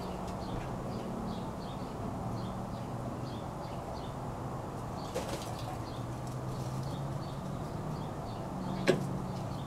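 Outdoor backyard ambience: small birds chirping faintly and repeatedly over a low, steady hum. A soft knock comes about five seconds in, and a sharper click, the loudest sound, comes near the end.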